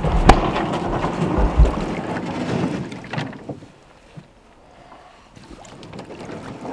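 Kayak being pushed off and paddled through water: water sloshing and splashing around the hull, with a sharp knock near the start and dull thumps about a second and a half in, dying down after about three seconds.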